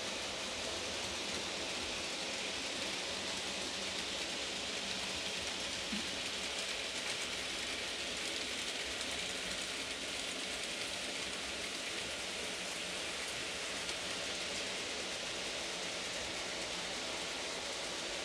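N gauge model trains running on the layout's track: a faint, steady rolling hiss of small wheels on rail.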